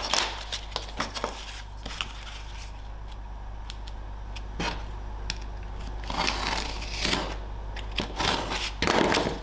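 Cardboard being cut with a blade: a few sharp clicks, then two scraping cuts about six and eight seconds in.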